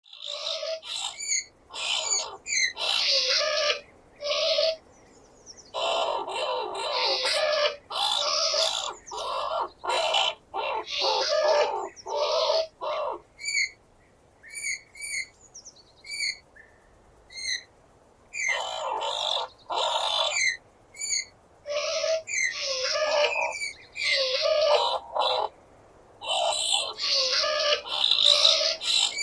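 Skunk squealing: irregular bursts of harsh, raspy shrieks mixed with short high squeaks, with a stretch of only the small squeaks in the middle. The sound is panned around the listener as 8D audio.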